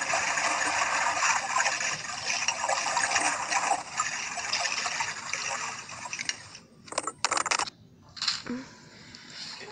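Rushing, bubbling water from a dog swimming underwater in a pool and blowing bubbles. It stops suddenly about six and a half seconds in, followed by a few short bursts of noise.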